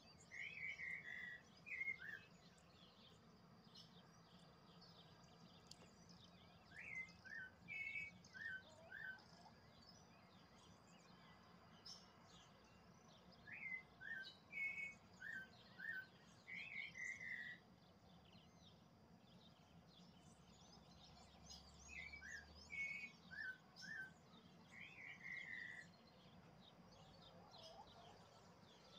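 A songbird repeats the same short song about every seven seconds, each a quick string of short notes. Fainter chirps from other birds and a steady low background hum carry on between the songs.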